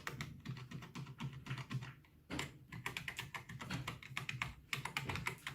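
Fast typing on a computer keyboard: rapid runs of key clicks, with a brief pause about two seconds in.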